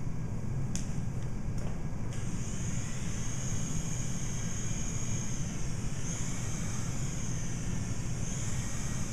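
Small RC helicopter's electric motor and rotors whining as it lifts off, starting about two seconds in after a few short clicks, the pitch wavering slowly up and down as it climbs. A steady low hum runs underneath.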